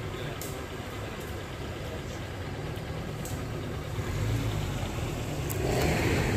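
Safari vehicle's engine running with a steady low rumble, growing louder about four seconds in and again near the end as it starts to pick up.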